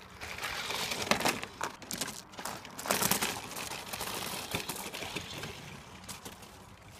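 Radio-controlled toy monster truck driving over loose gravel: its tyres crunch and scatter the stones. The crunch is loudest about a second in and again around three seconds, then fades as the truck drives away.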